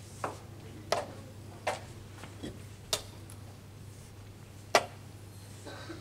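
Wooden chess pieces being set down on a wooden board and a chess clock being pressed during a quick exchange of moves: six sharp knocks at uneven spacing, the loudest near the end.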